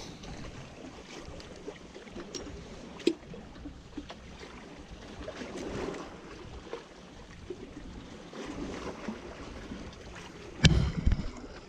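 Seawater sloshing in a low steady wash, with a few faint clicks and one loud knock near the end.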